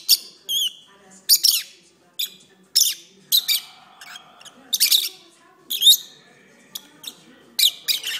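Peach-faced lovebirds chirping: a run of short, sharp, high-pitched chirps and squeaks in quick clusters with brief pauses between them, with a short wavy trill about half a second in.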